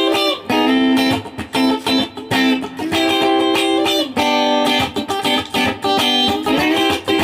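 Background music led by a plucked guitar playing a melody in short, regularly spaced phrases.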